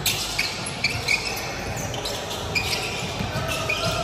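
Basketball court action: sneakers squeaking sharply and repeatedly on the court floor, with a basketball bouncing a few times.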